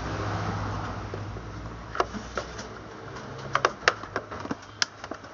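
Sharp clicks and taps of a metal screwdriver working against the plastic base housing of an air fryer being disassembled. A few clicks come about two seconds in, then a quicker cluster in the second half, over a low steady hum.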